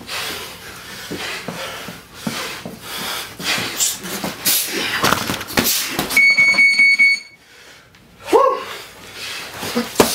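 Boxing gym round timer sounding one steady, high electronic beep about a second long, signalling the change of round. Before it, gloved punches landing, feet shuffling on the canvas and hard breathing from the sparring boxers.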